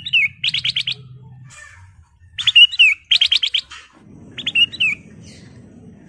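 Caged ruby-throated bulbul (kutilang emas) singing: three loud phrases about two seconds apart, each a quick run of clipped notes and a short warbling whistle. A faint low hum runs underneath.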